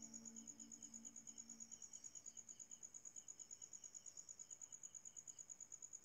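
Faint cricket chirping: a high, fast, even pulse of about ten chirps a second. The last notes of soft background music die away over the first two seconds.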